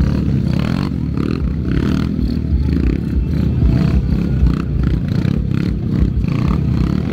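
Small pit-bike engines revving up and down as stunt riders hold wheelies, continuous with a fluctuating pitch.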